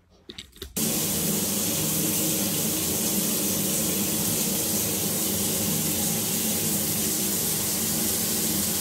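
Shower running: a steady rush of spraying water that starts suddenly about a second in, after a few faint clicks.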